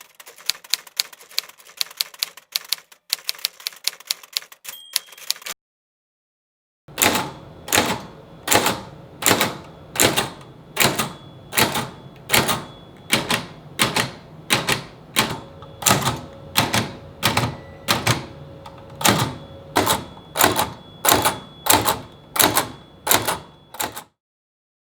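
Hammond No. 1 typewriter being typed. It starts with a quick run of keystrokes; after a short pause, slower single strikes follow at an even pace of about one and a half a second, each with a short ring.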